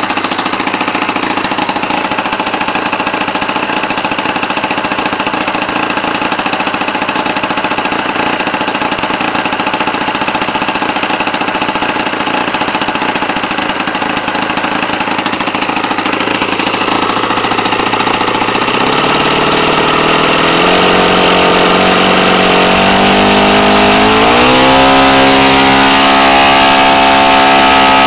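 Enya 90-4C single-cylinder four-stroke glow engine running with no muffler and turning an APC 14x8 propeller. It holds a steady lower speed for about the first two-thirds, then speeds up in steps over several seconds and settles at a higher, steady pitch near the end.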